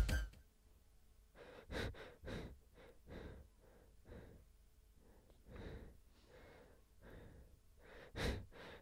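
Faint short breaths from a person, a dozen or so soft ones spread out, with near silence between them.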